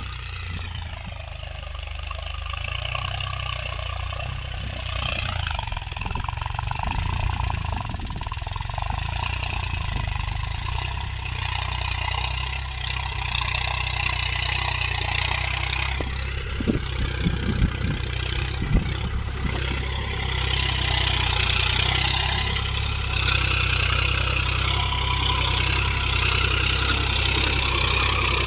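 Mahindra Yuvo Tech Plus 415 DI tractor's diesel engine running steadily as it pulls a tillage implement through the field. It grows louder as the tractor draws near, and a few sharp knocks sound about two-thirds of the way through.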